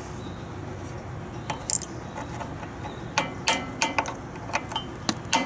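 Sharp metal-on-metal taps, about three a second, starting about three seconds in, from work on the starter clutch of an 8 hp Briggs & Stratton engine as it is refitted.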